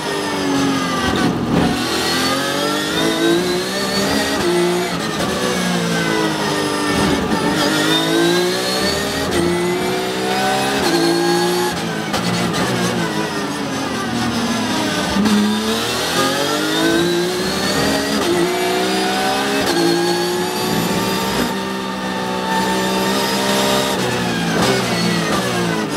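Porsche 911 GT3 Cup race car's naturally aspirated flat-six engine at full race load, heard from inside the cockpit. Its pitch climbs repeatedly through the gears, dropping sharply at each shift, and falls away under braking.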